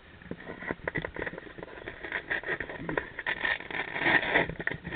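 Irregular clicks, knocks and scraping of hands handling LiPo battery packs while fitting them into an RC flying wing, getting busier and louder towards the end.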